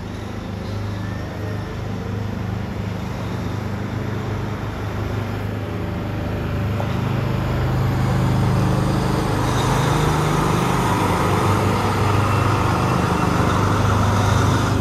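Rosenbauer Panther 6x6 airport crash tender's diesel engine running steadily as the truck drives up and past, growing louder until it is loudest from about eight seconds in, with road noise building as it goes by.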